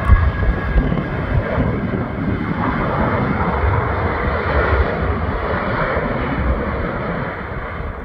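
Jet engines of an Airbus A319-111 running during its landing roll just after touchdown. The engine noise swells in the middle and eases off toward the end, over heavy wind rumble on the microphone.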